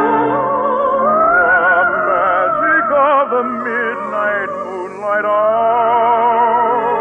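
Operatic singing with wide vibrato over orchestral accompaniment, the voice climbing to a long held high note about a second in. Old narrow-band radio recording with a dull, muffled top.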